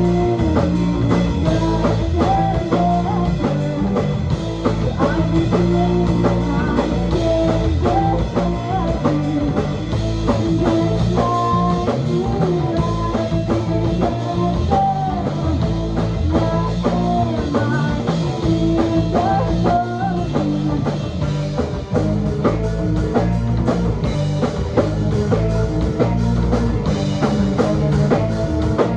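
Rock band playing live, an instrumental break with no vocals: a guitar melody over bass and drum kit.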